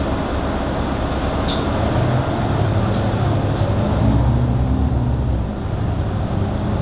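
Ride noise inside a New Flyer XD60 articulated diesel bus under way: a steady engine and drivetrain drone over road noise, the engine tones growing stronger about two seconds in.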